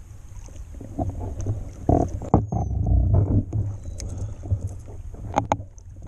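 A hooked largemouth bass splashing and thrashing at the surface beside a small boat, loudest for a couple of seconds near the middle, with a few sharp knocks near the end, over a low wind rumble on the microphone.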